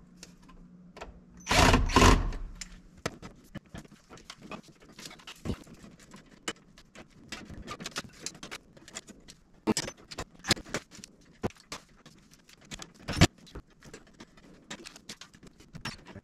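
A cordless drill-driver runs briefly about two seconds in, then scattered clicks, taps and rattles of tools, screws and wires being handled, with one sharp knock near the end.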